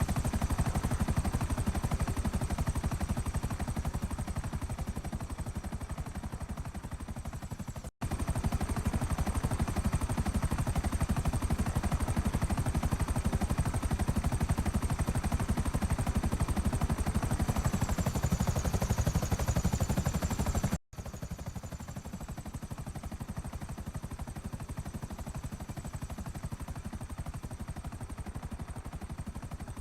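Helicopter rotor blades chopping with a fast, steady beat over a low drone, with a thin, high whine above. The sound cuts out for a moment about 8 seconds in and again about 21 seconds in, and is somewhat quieter after the second break.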